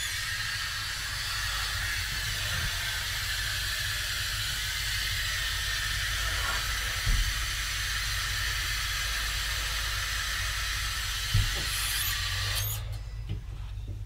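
Tap water running steadily into a bathroom sink, a constant hiss that cuts off suddenly near the end, with two dull thumps at about seven and eleven seconds in.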